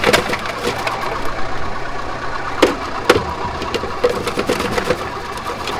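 Electric onion-cutting machine running steadily as onions are cut, with a low motor hum and a couple of sharp knocks a little past the middle.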